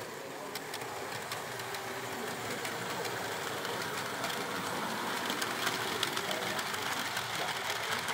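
Model train running past on the layout: a model diesel locomotive and coaches, its small motor whirring while the wheels click quickly over the rail joints, growing louder, over the hum of the exhibition hall.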